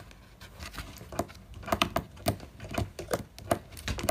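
Piglet chewing and smacking its mouth: a run of irregular sharp wet clicks, about three or four a second.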